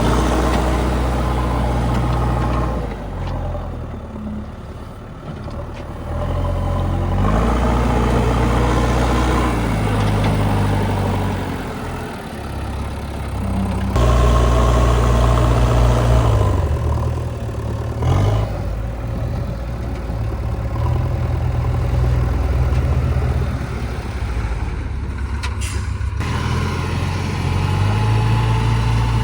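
Heavy diesel earthmoving machinery running, its engine revving up and down as it works under load while digging and loading mud.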